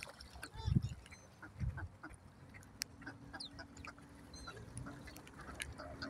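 A small flock of mallard ducks feeding on the water, giving short scattered calls and splashing, with a few low thumps in the first two seconds.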